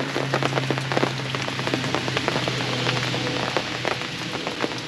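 Heavy rain falling steadily on a fabric canopy overhead, heard as a dense hiss full of separate drop hits. A steady low hum runs underneath and fades out near the end.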